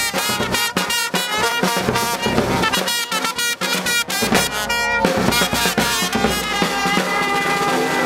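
Live brass band of trumpets, trombone and tuba playing a lively tune over snare drum beats. About five seconds in the drum strokes thin out and the brass holds longer notes.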